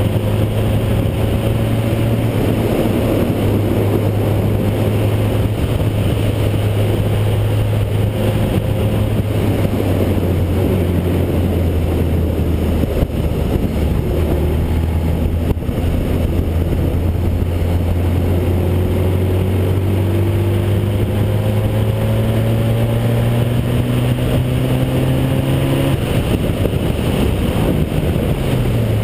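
Formula Basic single-seater race car's engine heard onboard at speed, its note holding fairly steady and climbing slowly. Near the end the note cuts back and then falls.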